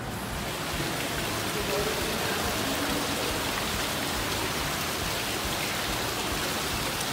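Indoor fountain splashing steadily: water falling from a tiered basin fountain and from lion-head wall spouts into a shallow pool.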